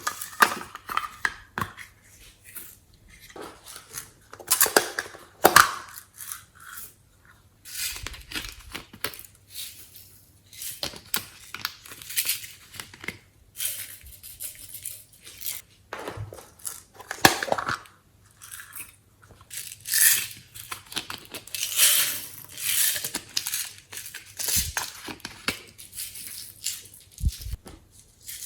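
Glossy slime being squished, pressed and stretched by hand, giving an uneven run of wet crackles, clicks and squelches.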